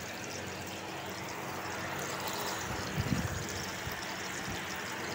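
Chapli kabab frying in oil on a flat tawa over low heat: a steady soft sizzle, with a brief low thump about three seconds in.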